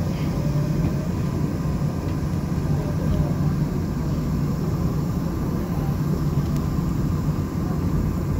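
Seoul Subway Line 7 train running out of an elevated station, heard from inside the passenger car: a steady low rumble of wheels and running gear on the track.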